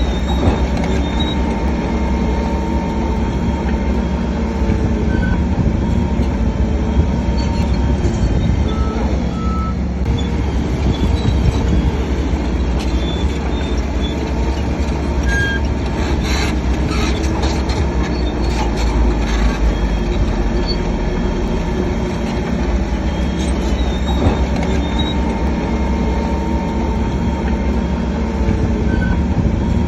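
Crawler bulldozer working: steady diesel engine rumble with the squeal and clatter of its steel tracks, and a run of metallic clanks around the middle.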